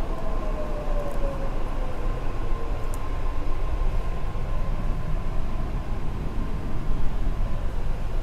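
Metro train running, heard from inside the coach: a steady rumble, with a whine that falls in pitch over the first three seconds.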